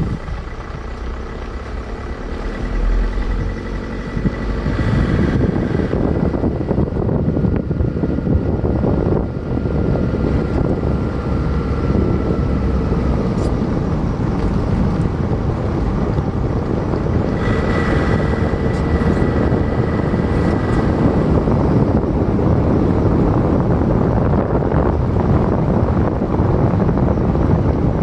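Car in motion: steady road and engine noise mixed with wind, growing louder about four or five seconds in.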